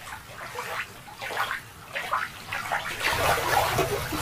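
Shallow water sloshing and splashing as a hand moves a toy through it, in irregular splashes that grow fuller and louder from about three seconds in.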